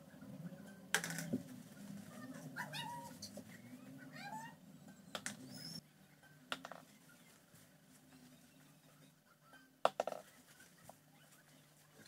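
Sharp taps of a badminton racket striking a shuttlecock, the loudest near ten seconds in, with a few lighter clicks between. Faint meow-like cries rise and fall in the first half.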